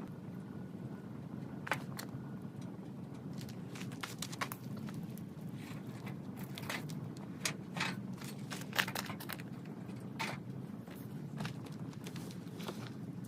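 Wood fire crackling, with irregular sharp pops over a steady low noise; the loudest pop comes about nine seconds in.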